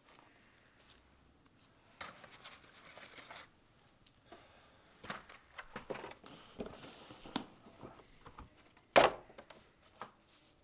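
Paper play money and cardboard game boxes being handled: intermittent rustling and crinkling, with one sharp knock about nine seconds in.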